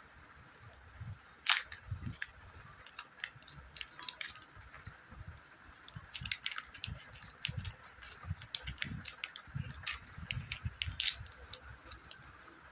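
Kinder Joy egg wrappers and a plastic toy packet crinkling and crackling in the hands, with many irregular sharp clicks and low handling bumps. One louder snap comes about a second and a half in, and scissors snip through a wrapper around the middle.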